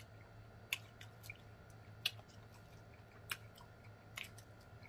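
Close-miked chewing of fried chicken, quiet, with a handful of sharp wet mouth clicks and smacks spread through.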